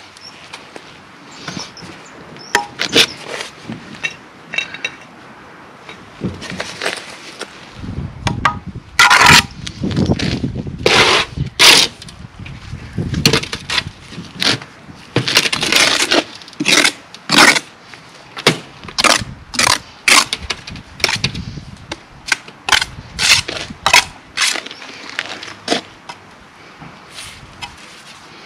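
Hand tools used in bricklaying work, making an irregular run of short, sharp scrapes and knocks against brick, sand or mortar. The strokes come thicker and faster after the first several seconds.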